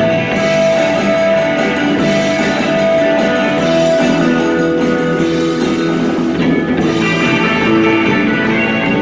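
Live rock band playing electric guitars over a drum kit, with one long held note for the first four seconds or so.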